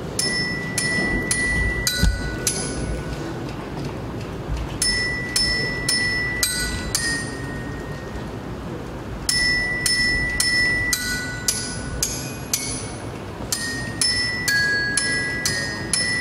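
Tuned metal percussion struck with mallets: bell-like notes that ring on after each stroke, played about two a second in short phrases with brief pauses, then a steadier run of notes in the second half.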